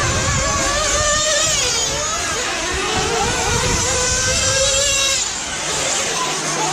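Several radio-controlled off-road race cars running on a dirt track, their motors whining up and down in pitch as they accelerate and brake through the corners.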